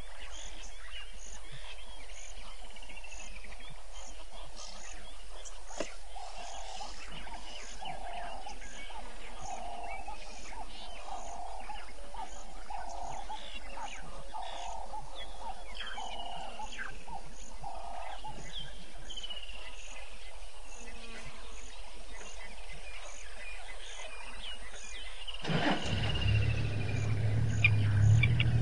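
Dusk bush ambience: an insect pulsing steadily, birds calling in falling whistles, and a run of about a dozen evenly spaced calls, one a second, from an animal that cannot be named for certain. Near the end a low engine rumble comes in and grows louder, the loudest sound here.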